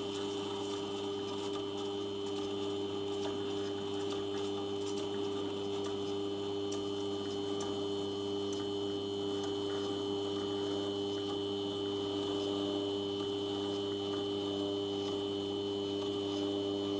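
Motor-driven polishing spindle running at a steady speed, with a steady hum of several tones and a faint high whine, while a watch case is held against the rim of its spinning wheel.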